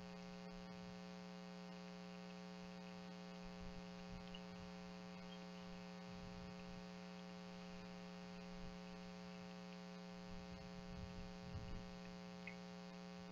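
Steady electrical hum: a low, buzzing mains-type tone with many overtones, constant throughout, with a few faint low thumps around the middle and near the end.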